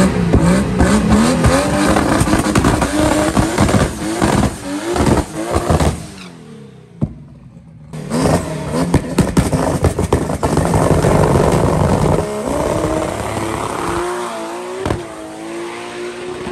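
Chevrolet Opala drag car's engine revving hard at the start line, then, after a brief break about six seconds in, launching and accelerating down the drag strip, its note fading as it pulls away.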